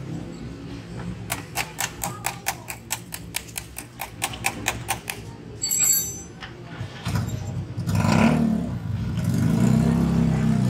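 Ratchet wrench clicking steadily, about four clicks a second, on the nuts of a vehicle's battery fittings. After a brief high jingle, a motor vehicle engine runs louder through the second half, its pitch rising and falling as it revs.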